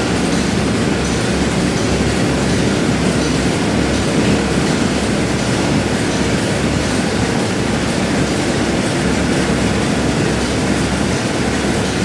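Factory machinery running: a steady, dense mechanical din with a low, uneven pulsing underneath.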